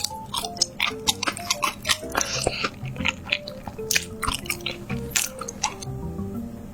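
Close-miked crunchy chewing and biting, a rapid run of sharp crackles, over light background music of short melody notes.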